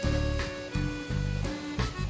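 Background music, with a bass line and pitched notes that change every half second or so.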